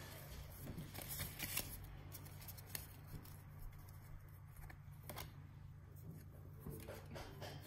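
Faint rustle and flick of Pokémon trading cards being slid one behind another in the hands, with scattered light clicks that come more often near the end.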